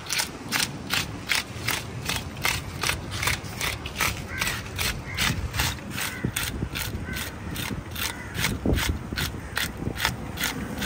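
A hand scaler being raked over the side of a large grouper in quick repeated strokes, about four a second, rasping the scales off.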